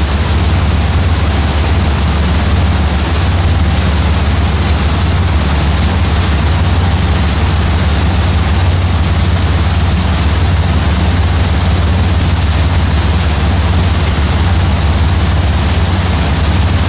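Boat under way: its engine runs steadily as a low drone, under a constant rush of wind and water noise.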